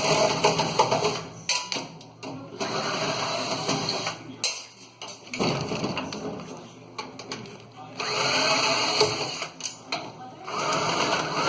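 A power screwdriver or drill running in several short bursts of a second or two, its pitch bending as it speeds up and slows, backing out sheet-metal screws, with sharp clicks and knocks of metal parts between the bursts.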